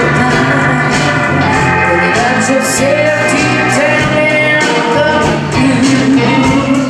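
Live blues band playing: a woman sings over electric guitar, bass guitar, drums with steady cymbal strokes, and keyboard.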